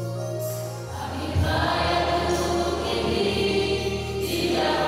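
A mixed youth choir singing a slow gospel hymn together, over held low notes that change with the chords.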